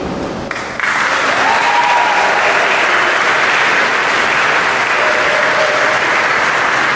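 Large audience applauding, the clapping starting just under a second in and holding steady.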